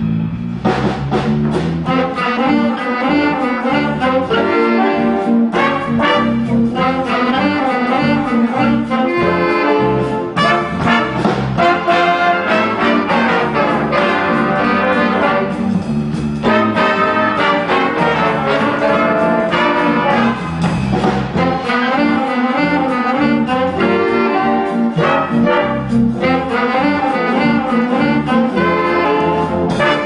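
Student jazz big band playing loudly in full ensemble, with trumpets, trombones and saxophones carrying the line.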